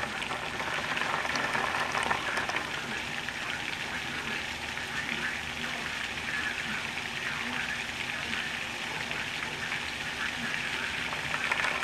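Heavy hurricane rain pouring down in a steady hiss, with no let-up.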